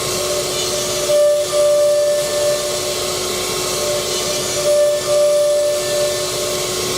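Spindles of a high-speed four-spindle CNC router whining steadily over a broad cutting hiss. A second, higher whine comes and goes as the cut swells several times.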